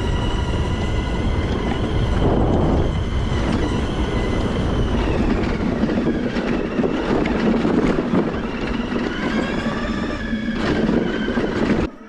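Outrider USA Coyote electric ATV being driven along a dirt trail: its electric drive whines, the pitch rising and falling with speed, over a dense rumble from the tyres and chassis on rough ground. The sound drops away abruptly near the end.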